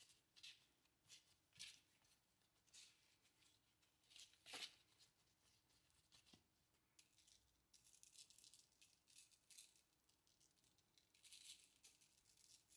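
Faint, scattered rustling and shaking: plastic food-prep gloves working seasoning into raw chicken wings, and a jar of red pepper salt shaken over them, with one light tap about four and a half seconds in.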